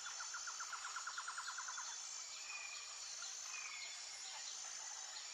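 Faint outdoor nature ambience: a rapid trill of quick repeated chirps fades out over the first two seconds. Under it run a steady high thin whine and a couple of faint bird chirps near the middle.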